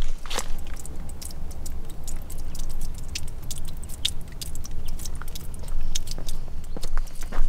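Hiking-boot footsteps on a stony, leaf-strewn trail: irregular crunches and small clicks of stones and dry leaves underfoot, over a steady low rumble.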